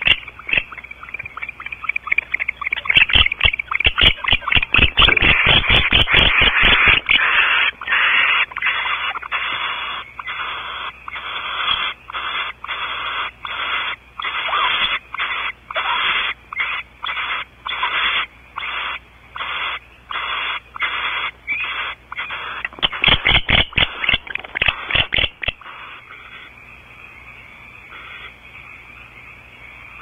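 Barn owls in a nest box: repeated hissing snore calls, about one to two a second, with flurries of rapid clicks and scuffling a few seconds in and again near the end.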